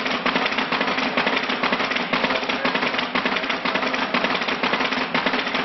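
Footsteps of a large crowd walking on stone paving: a dense, continuous clatter of many overlapping steps, with a low steady hum underneath.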